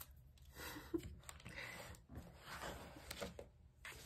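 Faint rustling of a coloring book's paper pages as a hand smooths and presses the open page flat, with a few light taps.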